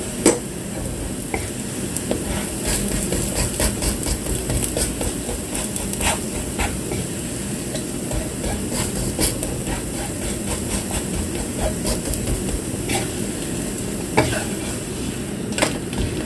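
Wooden spatula scraping and tapping against a non-stick wok as it works around and under a pancake, with a steady sizzle of the batter frying in the pan. The scrapes and taps come irregularly throughout.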